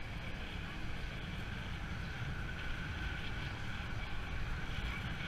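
Wind rumbling on the microphone of a camera on a moving bicycle, over a steady hiss of street traffic.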